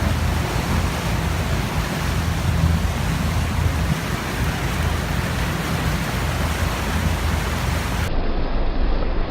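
Steady rush of wind and water with a low engine drone, as from a motorboat under way. Near the end the sound abruptly turns duller.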